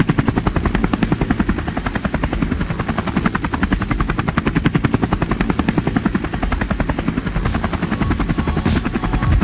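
Helicopter in flight: a steady, rapid chop of the rotor blades over a low engine hum.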